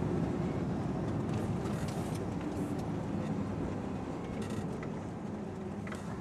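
Truck engine and drivetrain running steadily, heard from inside the cab as the lorry drives slowly along a narrow lane, with a few faint clicks and rattles.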